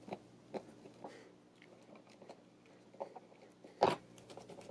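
Scattered small clicks and scratches of stiff stranded copper wire and a plastic 240-volt plug being handled as the wires are worked into the terminals, with a screwdriver brought to a terminal screw; the sharpest click comes near the end.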